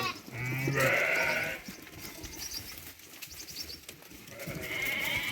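Sheep bleating: one loud bleat about half a second in, lasting about a second, then another bleat starting near the end.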